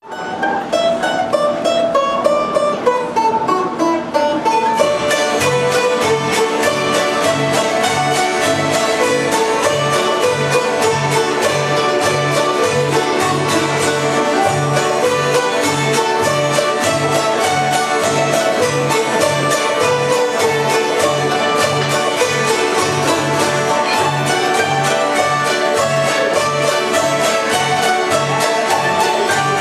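Bluegrass music with banjo and guitar over a steady beat; it starts abruptly and the full band comes in after a few seconds.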